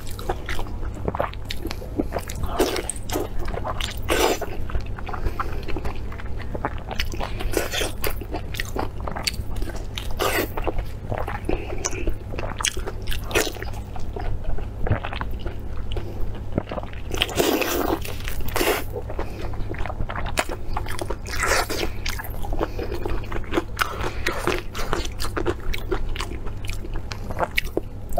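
Close-miked biting and chewing of Chinese blood sausage in its casing, with many irregular wet mouth clicks, over a steady low hum.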